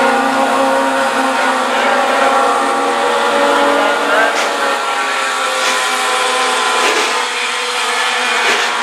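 Engines of several mini late model dirt-track race cars running hard together, a steady layered drone of many engine notes at once.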